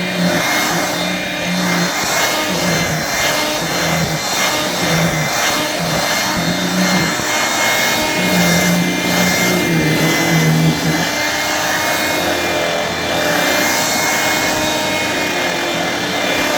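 1985 Hoover Brush Vac hand vacuum running, its motor giving a steady whine with a low hum that comes and goes as it is moved.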